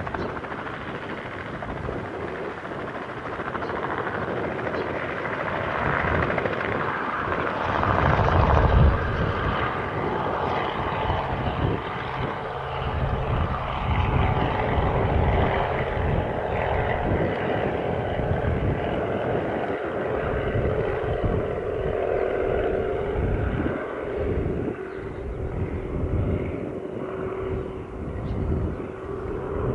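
Robinson R44 Raven II helicopter running at low hover and then climbing away, its two-blade main rotor beating steadily over the hum of its six-cylinder Lycoming piston engine. Loudest about nine seconds in; the sound turns duller near the end as it moves off.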